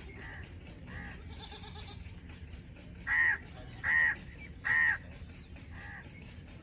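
An animal calling in short, evenly spaced cries about every 0.8 seconds: a few faint ones, then three loud ones in a row past the halfway point.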